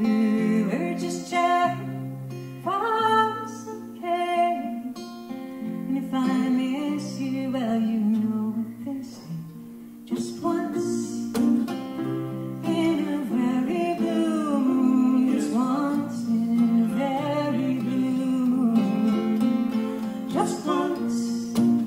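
Acoustic guitar and ukulele playing a slow folk song together, with a voice singing over the plucked chords.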